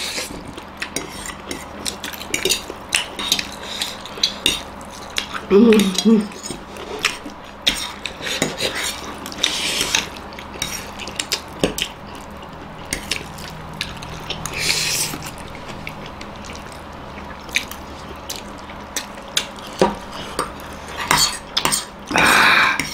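Metal forks clinking and scraping on plates as two people eat ramen noodles, with a few hissy noodle slurps, the loudest near the end.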